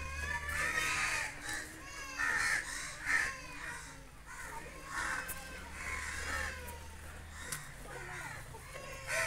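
Harsh bird calls repeated every second or so, over a low steady hum that stops near the end.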